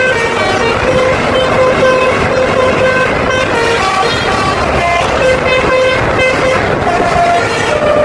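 Basuri multi-tone 'telolet' air horn on an NPM bus playing a quick melody of short stepped notes, over road and engine rumble.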